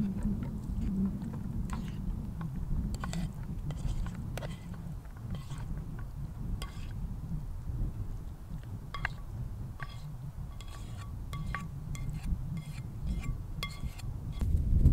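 A plastic utensil scraping and tapping food out of a camping frying pan into a plastic plate: a string of light clicks and scrapes, some leaving a short metallic ring from the pan, over wind rumble on the microphone.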